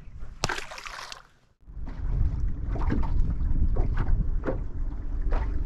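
Wind buffeting the microphone on a small fishing boat, a steady low rumble, with a sharp knock about half a second in and scattered light knocks and clicks from handling gear. The sound drops out briefly about a second and a half in, then the rumble comes back.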